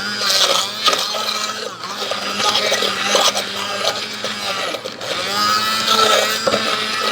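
Electric hand blender running, pureeing soft pressure-cooked carrots; its motor hum holds steady while a higher whine rises and falls in pitch.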